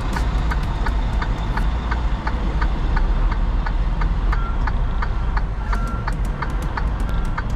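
Semi-truck diesel engine running at low speed while the rig manoeuvres, a steady low rumble heard from inside the cab. Light background music with a quick ticking beat plays over it.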